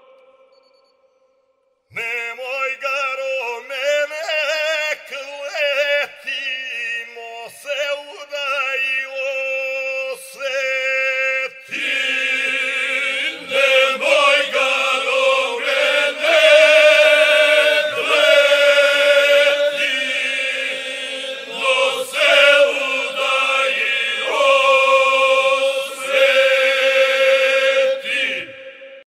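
A group of folk singers singing, voices moving over a steady held note. It starts about two seconds in and grows fuller and louder about twelve seconds in.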